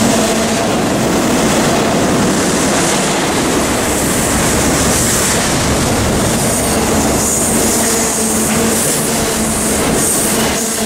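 Norfolk Southern freight train cars rolling past close by at a steady loud level, wheels clattering on the rails with a faint steady wheel squeal.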